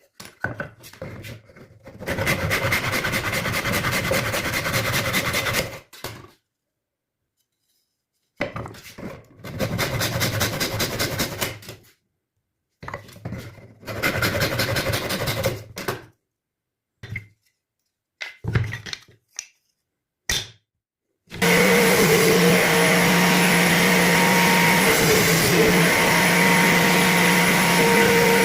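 Electric woodworking power tools cutting wood: three separate few-second bursts of a fast-stroking cutting tool, a few short clicks, then about two-thirds of the way in a motorised tool starts running steadily with a constant hum.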